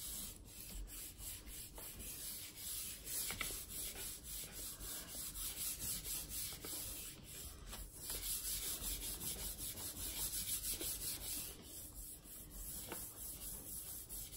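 Hands rubbing the back of a sheet of paper laid on a gel printing plate, palms sliding over the paper in quick repeated strokes, burnishing it to pick up the paint for a print.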